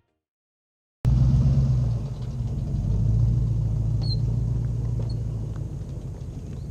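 Silent for about the first second, then a vehicle engine running with a steady low rumble.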